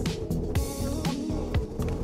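Background music with a steady beat, about two drum hits a second.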